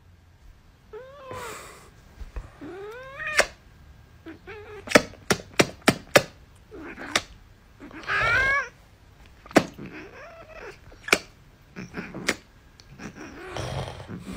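Tabby cat meowing in a string of about seven drawn-out calls that slide up and down in pitch, the loudest about eight seconds in. Short sharp clicks fall between the calls.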